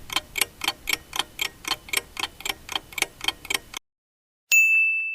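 Countdown-timer sound effect: a clock ticking fast and evenly, about four ticks a second, stops suddenly near the end. After a short gap, a single bright ding rings out and slowly fades, marking time up.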